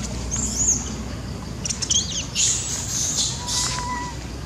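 Young macaque monkeys giving high-pitched squeals and screeches in several short bouts, the longest in the middle, with a lower, held call near the end.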